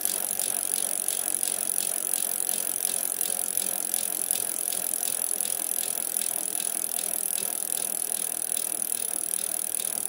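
Bicycle sound effect: a steady run of fast, even clicks, like a chain and freewheel ticking, over a rolling hiss.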